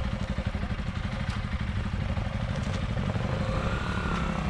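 Vehicle engine running with a steady low throb. A smooth higher whine joins in about three seconds in.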